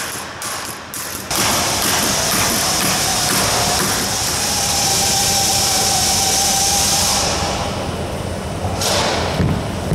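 A steady, loud mechanical running noise: a dense hiss with a faint steady hum in it. It comes in suddenly about a second in and dies down about seven seconds in.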